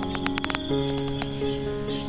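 Gentle background music with held notes changing every so often, over steady cricket chirping, with a quick run of clicks in the first half second.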